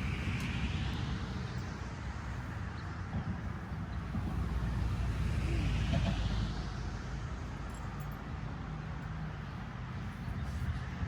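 Road traffic: a steady low rumble, with a vehicle passing and swelling loudest about six seconds in.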